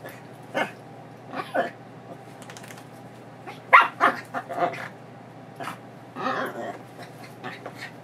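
Excited Chihuahua-mix dog barking and yipping in short bursts, the loudest a quick run of several about four seconds in, a longer whining call about six and a half seconds in; she is worked up at having her leash put on for a walk.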